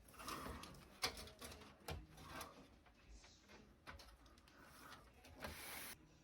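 Faint handling noise: scattered light clicks and short rustles, with one sharper click about a second in and a longer rustle near the end.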